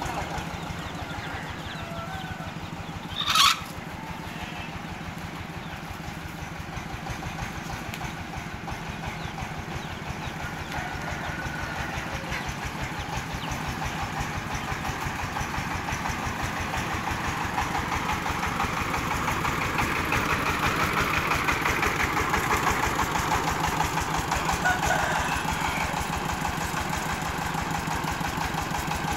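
Single-cylinder diesel engine of a homemade rice-milling vehicle running steadily with an even, fast beat as the vehicle drives slowly past, growing louder as it comes near. A brief sharp sound about three and a half seconds in.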